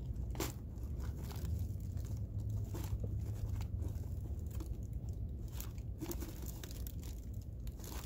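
Fingers rubbing and flicking the paper pleats of a pleated air filter, giving irregular dry crackles and crinkles, over a steady low rumble.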